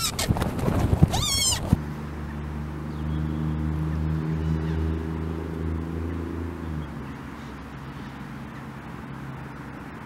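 A person's high, wavering cry that lasts under two seconds and cuts off abruptly. A steady low hum with several even tones follows, and it drops to a quieter hum about seven seconds in.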